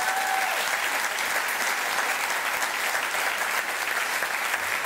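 Audience applause, many people clapping at an even level.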